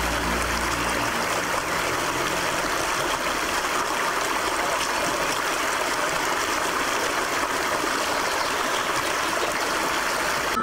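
Shallow mountain stream running over rocks: a steady rushing and splashing of water.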